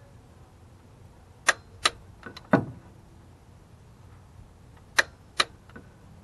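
Click-type torque wrench clicking as intake manifold bolts reach their set torque: two sharp clicks about a second and a half in, a duller knock about a second later, and two more sharp clicks about five seconds in.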